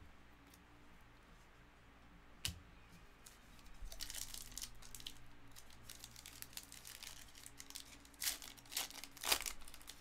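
Foil wrapper of a 2022 Panini Legacy Football card pack being torn open and peeled back, crinkling. One sharp click comes about two and a half seconds in, the crinkling starts about four seconds in, and the loudest crackles come near the end.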